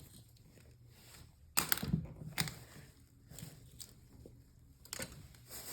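A few short rustles and clicks, loudest about one and a half seconds in and again near the end, as small toy prizes are put into a bag.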